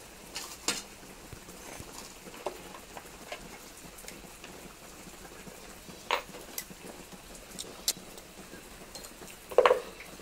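Scattered clicks and knocks of an electronic energy meter and plastic fittings being handled and set down on a wooden board, a few taps in all, the loudest about six and nine and a half seconds in.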